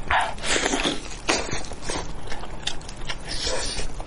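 Close-up eating sounds: biting and tearing meat off a spicy braised sheep's head and chewing it, in irregular bursts that are strongest in the first second or so.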